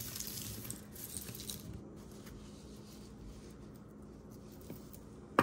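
Costume jewelry being handled on a cloth: gold-tone chain and beaded strands rustling and clinking faintly as they are untangled, mostly in the first couple of seconds. A faint steady hum sits underneath, and a single sharp click comes at the very end.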